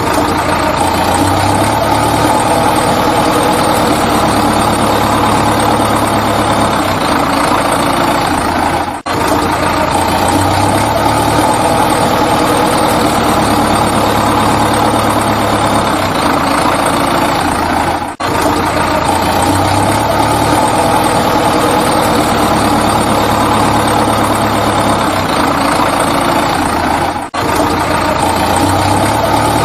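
Looped recording of a heavy engine idling: a steady, dense rumble that repeats identically, with a brief dropout about every nine seconds where the loop restarts.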